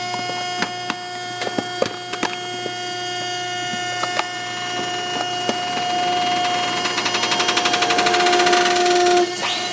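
Hydraulic cardboard baler pressing boxes down: the pump motor hums steadily while the cardboard gives sharp cracks as it is crushed. From about six seconds in, a rapid pulsing builds louder as the press reaches full pressure, then cuts off suddenly shortly before the end.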